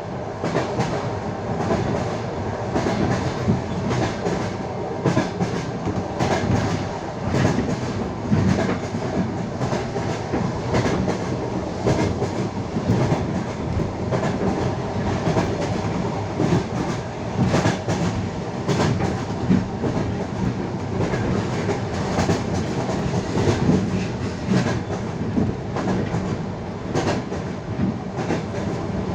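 Passenger train carriage wheels clattering over rail joints as the train runs steadily at speed, heard from on board the carriage, with a continuous rumble under a dense run of knocks.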